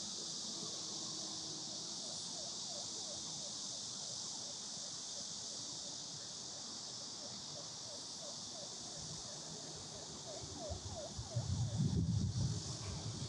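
Summer cicadas droning in a steady high-pitched hiss. Near the end, wind gusts buffet the microphone in a low rumble.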